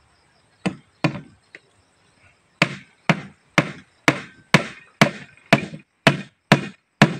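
Hammer driving a nail into a plywood panel. A few light taps set the nail, then steady blows come about two a second.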